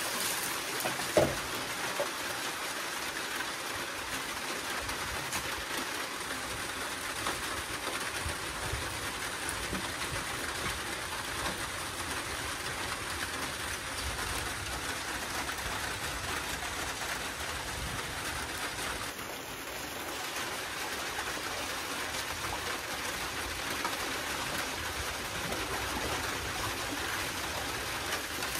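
Steady rain falling, an even hiss with no break, with one short knock about a second in.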